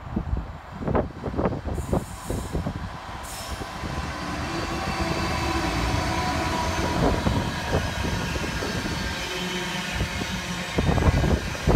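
Freightliner Class 66 diesel locomotive passing at the head of a container freight train. Its engine comes up over the first few seconds, then the container wagons roll by with a steady rail rumble. Wind buffets the microphone during the first couple of seconds.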